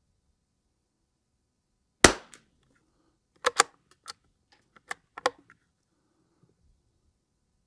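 A Lithgow LA101 bolt-action .22 LR rifle fires one shot about two seconds in. A run of sharp metallic clicks follows as the bolt is worked to eject the case and chamber the next round.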